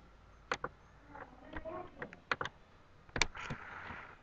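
Computer mouse clicking: a few sharp clicks, some in quick pairs like double-clicks, over faint room noise, with a short soft hiss about three and a half seconds in.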